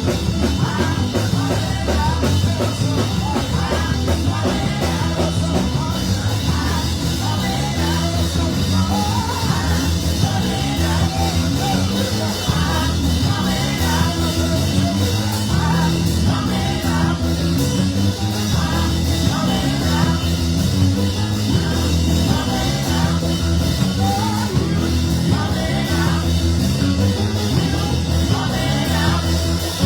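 Band music with drums, a stepping bass line and singing, playing steadily.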